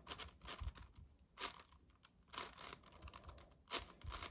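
7x7 magnetic speed cube being turned by hand: irregular plastic clicks and clacks of layer turns, a few each second.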